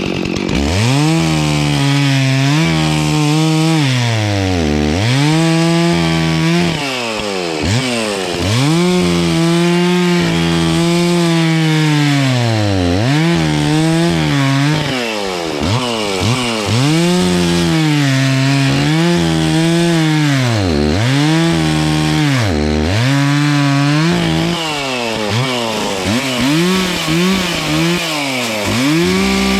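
Gas chainsaw cutting a downed tree: the engine runs at high revs and bogs down again and again as the chain bites into the wood, pitch dropping sharply and climbing back each time, with a few quick revs near the end. The sawyer thinks the chain is a little dull.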